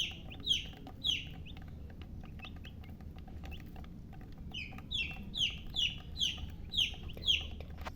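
Baby chicks peeping: high chirps that each slide quickly down in pitch. There are three loud ones in the first second or so, softer scattered cheeps in the middle, then a run of about seven loud ones, roughly two a second, in the second half.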